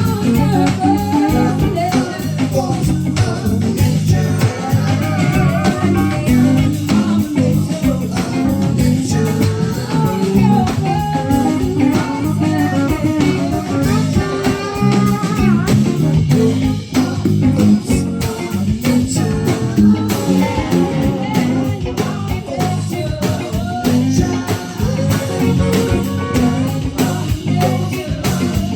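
Live band playing an instrumental break of the song, with guitar carrying the melody over a steady rhythm section.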